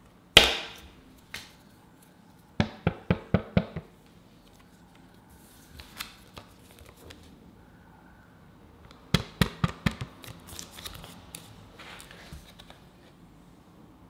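Cardboard and paper packaging handled on a table: a single thud near the start, then two runs of quick sharp taps, about six in a second each, a few light clicks, and paper rustling near the end.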